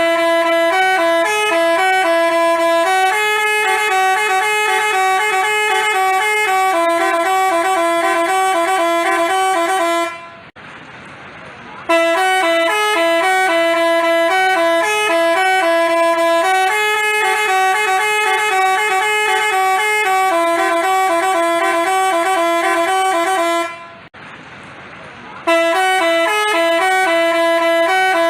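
Basuri telolet bus horn, a multi-tone horn, playing a looping melody of quick stepped notes. It stops twice for about a second and a half, about ten seconds in and again near the end, then takes up the same tune.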